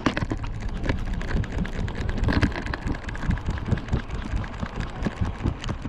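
Rapid, irregular knocking and rustling from a camera strapped to a trotting Yorkshire terrier's back, the harness, lead and fur jostling against it with each quick step, over a steady low rumble.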